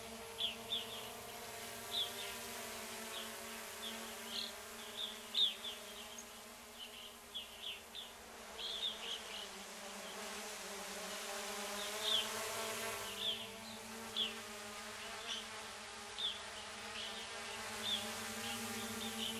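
A steady, buzzing hum with short high chirps coming and going over it, a few each second.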